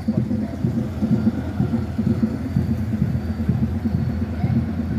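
Classic cars creeping past at walking pace, a 1960s Cadillac convertible and a 1970s Chevrolet pickup truck, their engines giving a steady low rumble with an uneven pulsing.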